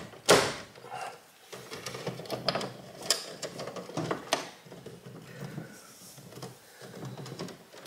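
Stiff insulated electrical wires being bent and pushed around inside a metal breaker panel: scraping and rustling against the enclosure, with several sharp clicks and knocks.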